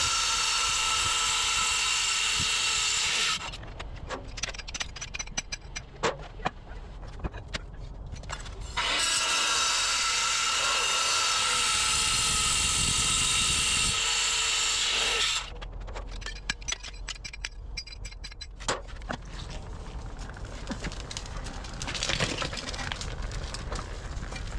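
A handheld power tool running at full speed in two long steady runs, the first about three seconds and the second about six seconds, with scattered knocks and clatter in the quieter gaps between and after them.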